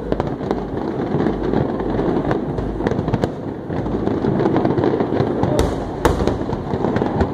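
Fireworks display going off continuously: a dense rumble of shell bursts with crackling, and two sharper bangs a little past the middle.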